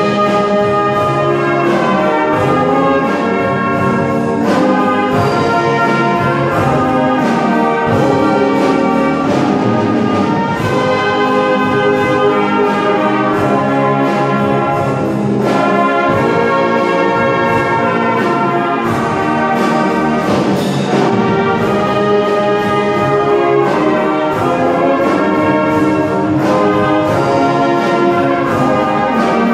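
A brass-led wind band playing a classical-style concert piece as one continuous ensemble passage, with the reverberation of a church nave around it.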